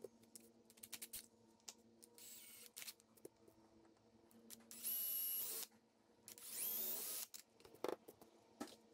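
Cordless drill boring small holes into a wooden block: three short runs, the last two loudest, each with a steady whine. Light knocks and taps of the block and tools being handled come between the runs.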